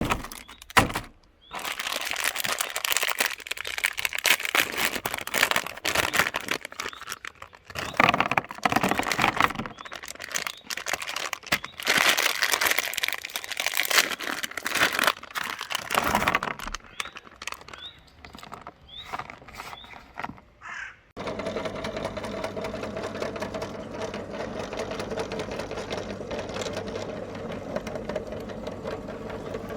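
About twenty seconds of irregular bursts of noise. Then, about 21 seconds in, an electric meat grinder's motor starts abruptly and runs with a steady hum.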